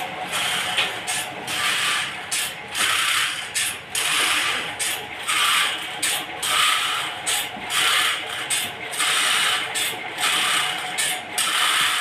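Sawmill machinery running with a steady hum, overlaid by a rhythmic rasping scrape about once a second.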